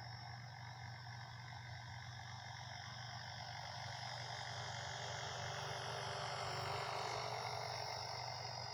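Distant whine of a WLToys V950 RC helicopter's brushless motor and rotors in flight, its pitch drifting and its sound swelling louder around seven seconds in, then easing off.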